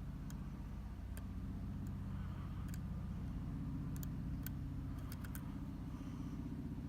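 Steady low hum, like an engine or motor running in the background, with scattered small sharp clicks from a hook pick working the pins of a Talon oval lock cylinder.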